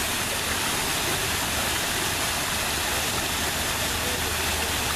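Artificial rock waterfall cascading into a pool: a steady, even rush of falling water.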